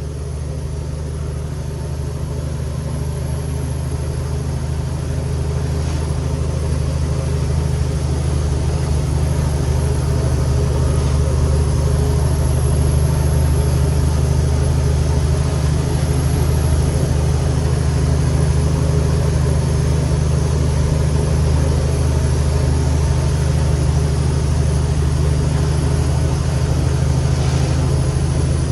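Cummins X15 diesel engine of a heavily loaded 2021 Kenworth T800 truck pulling steadily, heard from inside the cab. The deep drone grows gradually louder over the first several seconds, then holds steady.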